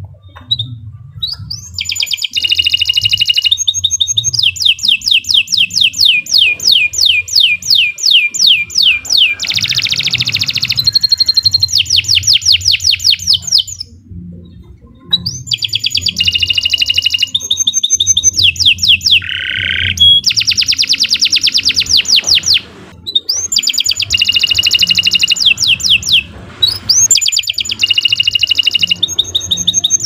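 Domestic canary singing long, continuous song phrases of fast trills and rapid repeated notes, broken by brief pauses about a third of the way in and twice more later.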